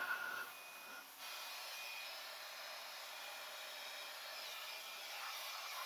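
Battery-powered blower running steadily, blowing rinse water out of an engine bay's crevices. Its sound drops briefly about a second in, then carries on steadily.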